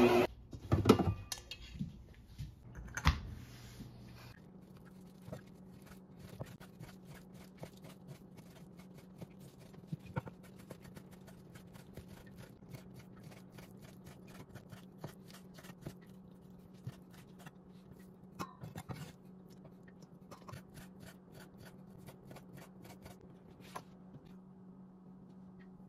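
Chef's knife cutting raw pork on a wooden cutting board: many faint, irregular taps and short scrapes of the blade against the board. A few louder knocks come in the first few seconds.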